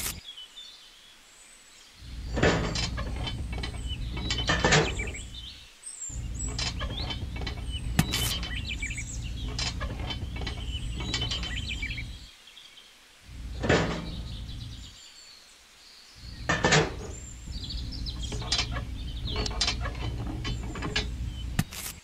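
Small plastic and metal parts of a model tractor's hitch being handled: scattered clicks, taps and light rattles as a trailer is unhitched and a blade attachment is fitted and pinned on with a thin metal rod. Underneath there are stretches of low rumble that start and stop several times.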